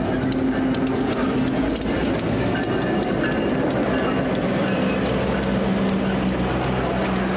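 EMD SD9 diesel-electric locomotive passing at close range, its 16-cylinder 567 diesel engine running steadily. The engine note drops in pitch about halfway through as it goes by. The wheels click over the rail joints as the passenger coaches follow.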